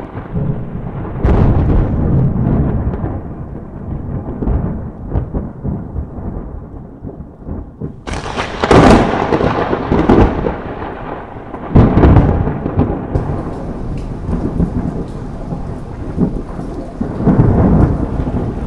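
Thunderstorm: steady rain with repeated rumbles of thunder. The loudest is a sharp crack about eight seconds in, with further peals a few seconds later and again near the end.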